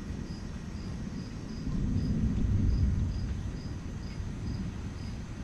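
Distant thunder rumbling, swelling about two seconds in and then fading back. Meanwhile a cricket chirps steadily, about twice a second.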